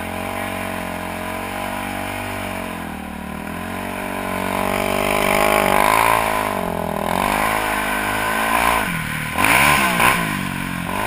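Sport quad ATV engine heard from the rider's seat, running at low revs and then revving up as it pulls away. Near the end the pitch rises and falls quickly several times as the throttle is worked.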